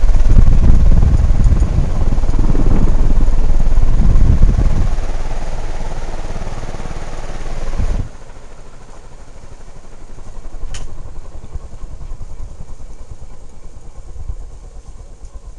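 S.M.C. M48 industrial ceiling fan running, with a loud, uneven low rumble for about the first half. The sound then drops off suddenly to a quieter steady running noise, with one sharp click a few seconds later.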